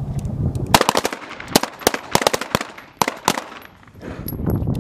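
Several 9 mm Beretta M9 service pistols firing: about a dozen sharp shots in quick, uneven succession, starting about a second in and stopping about three and a half seconds in.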